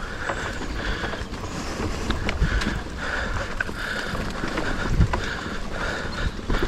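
Cube mountain bike ridden over a muddy, bumpy forest trail: tyre rumble and wind buffeting on the action-camera microphone, with chain and frame rattles and a few heavier knocks over bumps, about two and a half and five seconds in. A freewheel hub buzzes in stretches while the rider coasts.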